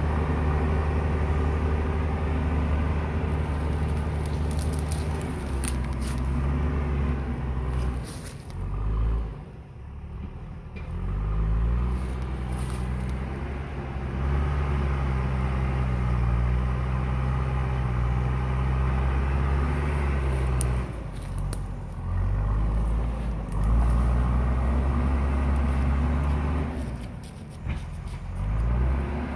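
JCB backhoe loader's diesel engine running under varying load. Its note sags and the level drops briefly three times, as the throttle eases off and picks up again. A few sharp cracks are mixed in.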